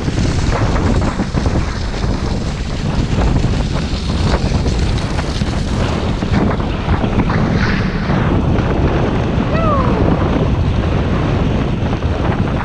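Wind rushing over the action camera's microphone and skis hissing and scraping over packed snow while skijoring behind sled dogs. A brief falling whine about ten seconds in.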